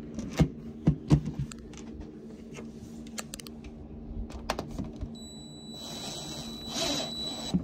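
Plastic front cover of an SMA Sunny Boy inverter clicking and knocking against the housing as it is handled and fitted back on. A quick flurry of clicks comes in the first second and a half, then scattered taps. Near the end there is a scraping rustle, with a faint high steady whine over the last couple of seconds.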